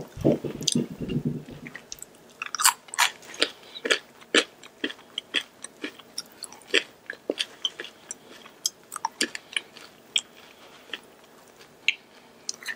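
Close-miked eating sounds: a wet sucking sound as a sauce-covered finger is licked clean in the first second or so, then french fries being chewed with many short, sharp mouth clicks.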